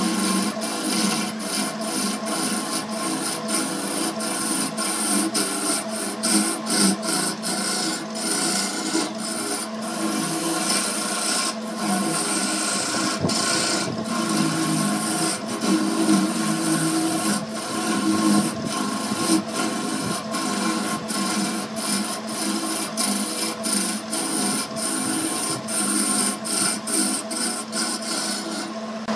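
Wood lathe running while a hand-held turning tool cuts into a spinning wooden blank. A steady motor hum sits under the rough scraping of the cutting edge on the wood, which breaks off briefly many times.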